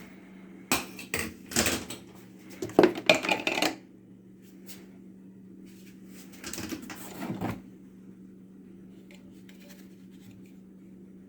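Hard objects knocking and clattering as they are handled and set down, in two bursts: one in the first few seconds and a shorter one past the middle. A steady low hum runs underneath.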